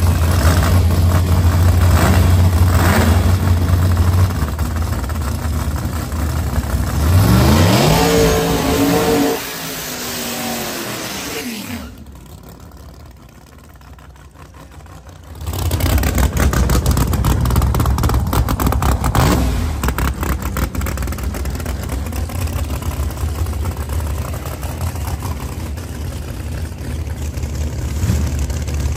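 Supercharged drag-racing car engines running loudly at the start line, then rising steeply in pitch as the cars launch, the note falling and fading away down the track. After a short quieter stretch, loud engine noise returns.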